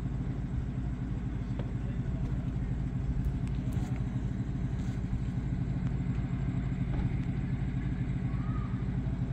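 A steady low mechanical drone with several even pitched layers, unchanging throughout, like an engine or machine running close by.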